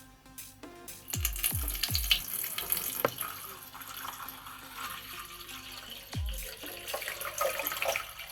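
Tap water running into a plastic coffee-machine water tank, starting about a second in.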